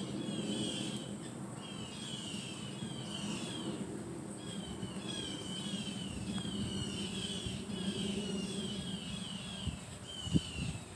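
Songbirds singing: quick series of short slurred chirps repeated in phrases about a second long, over a steady low rumble. A sharp knock sounds near the end.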